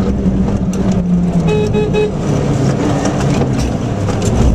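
Rally car engine heard from inside the cabin, its note falling over the first few seconds and picking up again near the end. About a second and a half in, a horn-like tone toots three times in quick succession.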